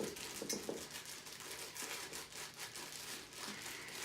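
Faint, irregular rustling and crinkling with small clicks as ingredients are handled and tipped into a container.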